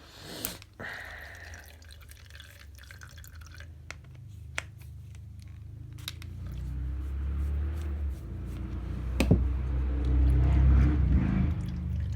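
A vehicle speeding past on the road, its low rumble building over several seconds and easing off near the end. Before it come a few sharp clicks and a scrape of tools and small engine parts being handled.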